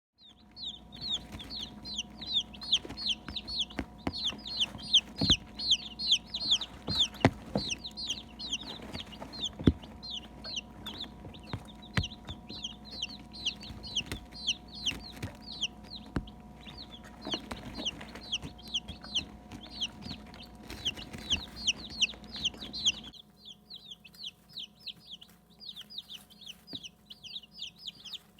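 A brood of day-old Barred Rock and Cinnamon Queen chicks peeping nonstop, many short high falling peeps overlapping several times a second, over a steady low hum and occasional light taps. The whole sound drops in level about three-quarters of the way through, and the peeping carries on more faintly.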